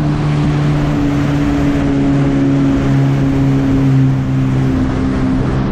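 Yamaha WaveRunner jet ski engine running at a steady cruising speed on a test ride, holding an even note that dips slightly, over a steady rushing hiss. The ski is running smoothly.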